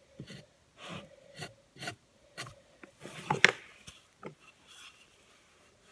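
Pencil scratching on a wooden workpiece in short, irregular strokes as trim lines are marked out, with a sharper scrape about three and a half seconds in.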